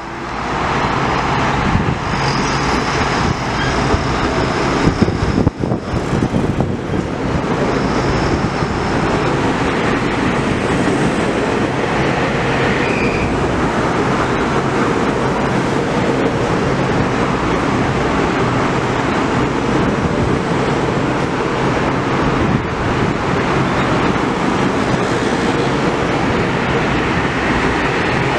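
Metro-North M8 electric multiple-unit train running past the platform close up: a steady, loud rumble of wheels on rail with motor noise.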